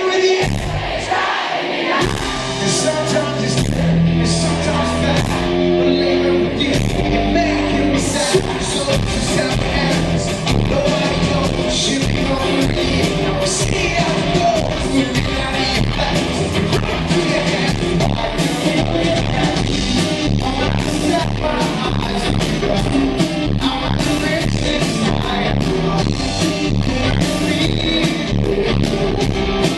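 Loud live pop-rock band on stage: drum beat, electric guitars and a male lead voice singing. The full band comes in about two seconds in.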